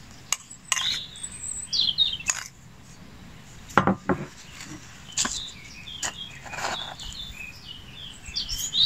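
Small birds chirping again and again, mixed with a few sharp clinks and knocks of a spoon against a small stainless steel pot as dried herbs are added, the loudest knocks about four seconds in.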